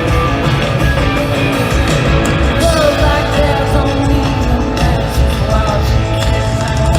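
Live country-rock band playing, with a heavy, steady drum-and-bass beat and a woman singing, heard through a concert crowd's recording.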